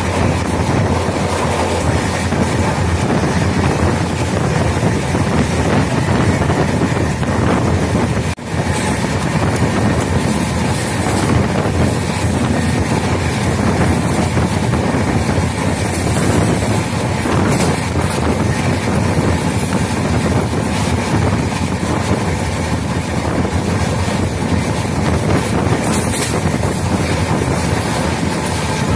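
Indian Railways passenger coaches running at speed, a steady loud rumble of wheels on rail mixed with wind buffeting the microphone held outside the coach. The sound cuts out for an instant about eight seconds in.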